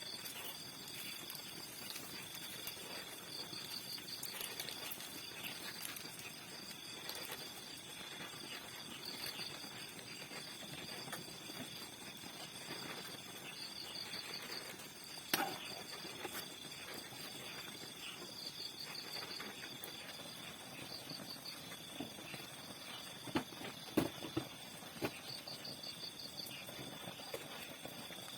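Insects chirping steadily, with a high continuous tone and repeated short pulsed trills. A few sharp clicks or knocks come about halfway through, and a cluster follows near the end.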